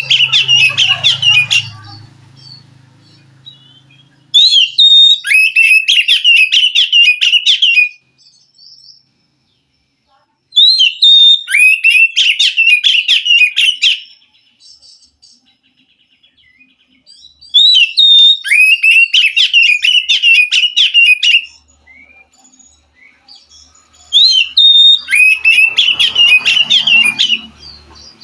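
Oriental magpie-robin (kacer) song: loud bursts of a few seconds, each starting with a high clear note and running into a fast string of chattering notes. The same phrase comes back four times with quiet gaps of a few seconds between, as in a looped recording used to get a caged kacer to sing.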